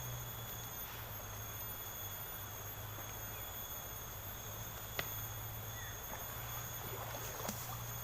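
Steady high-pitched insect drone with a low hum underneath, and a single sharp click about five seconds in.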